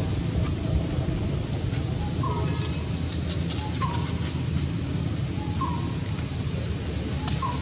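A bird giving four short calls, about one every second and a half, over a loud steady high-pitched hiss and a low rumble.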